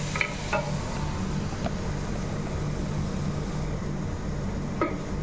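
A steady low mechanical hum, with a few short clinks of a utensil against a stainless steel pot about half a second in and again near the end.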